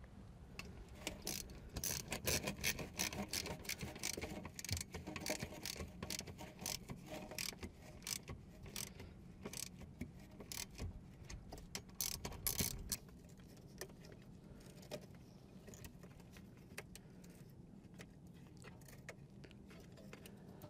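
Metal parts and hand tools clinking and rattling during hands-on installation work, a busy run of sharp clicks for about the first dozen seconds, then only scattered light ticks.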